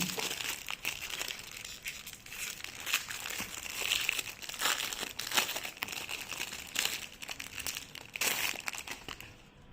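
Packaging crinkling and rustling in irregular bursts as a small photo album is unwrapped and handled by hand.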